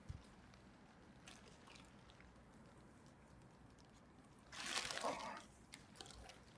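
A brief splash of water lasting about a second, roughly two-thirds of the way through, over a quiet background with faint scattered ticks.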